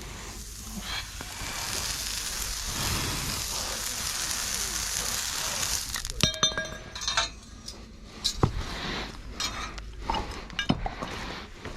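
A hot steel horseshoe hissing and sizzling steadily for about five seconds, then a series of sharp metallic clinks with a ringing tone from the shoe and farrier's tools.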